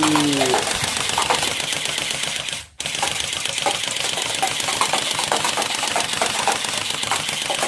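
Toy gun firing a rapid, rattling stream of clicks over a steady hiss, broken once by a brief dropout a little under three seconds in.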